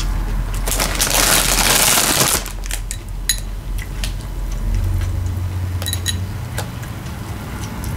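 Paper napkin rustling for about two seconds. Then sharp little clicks and clinks as long fingernails tap a glass bowl while fingers pick out pickled jalapeño slices.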